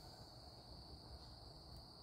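Near silence with a faint, steady, high-pitched chorus of crickets.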